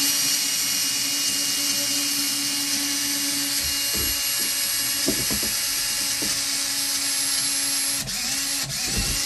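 Makita power drill driving a hole saw of about 32 mm through the plastic wall of a fish tub: a continuous, even cutting noise. The drill's steady motor hum drops out about four seconds in, with a few knocks, and comes back briefly near the end.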